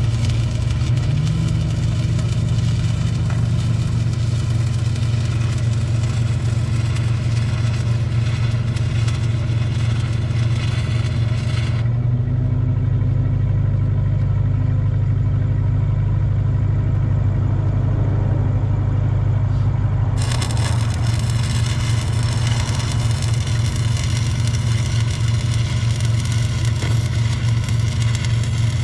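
Stick welding with 8010 pipeliner rods: the arc crackles and hisses over the steady drone of a welding machine's engine. The arc breaks off about twelve seconds in and strikes again some eight seconds later, while the engine keeps running.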